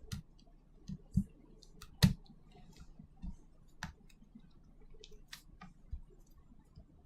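Irregular small clicks and taps, about half a dozen spread over the stretch, the sharpest about two seconds in: small hand tools and smartphone parts being handled during a repair.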